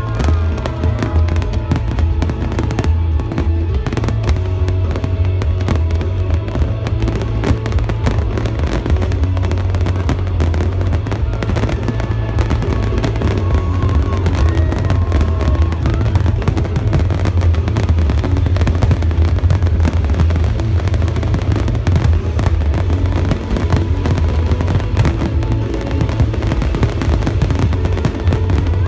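Aerial fireworks display at full intensity: a continuous barrage of rapid bangs and crackling over a deep, unbroken rumble of booms, with no pause.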